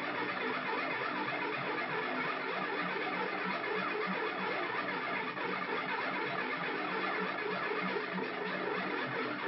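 Handmade Arduino (Mozzi) synthesizer played by turning its knobs, putting out a dense, chaotic stream of rapid glitchy blips and noise.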